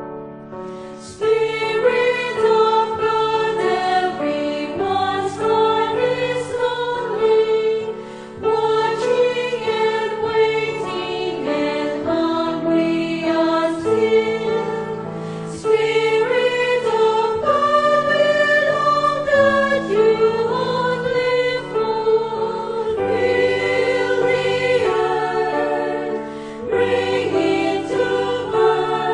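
A choir singing a hymn in several voice parts, sustained phrases with short breaths between them.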